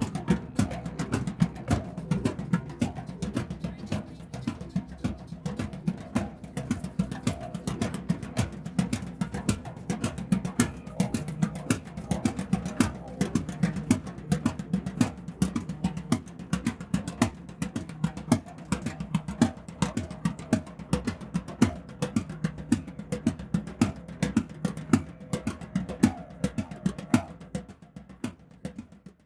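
Drum circle: many drums played together in a fast, dense rhythm, fading out and stopping near the end.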